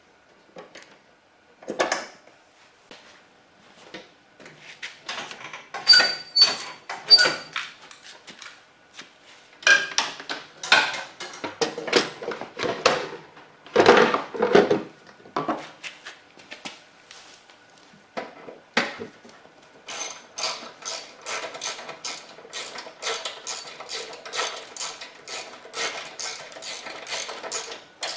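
Metal hand tools and snowblower parts clanking and knocking during reassembly, a few strikes ringing briefly. Near the end comes a steady run of quick metallic clicks, about three a second, as a bolt is run down.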